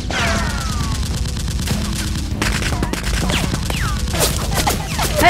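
Movie-style gunfire sound effects dubbed over Nerf blasters: scattered shots with falling whizzing tones, the loudest cluster of shots near the end, over a steady low music bed.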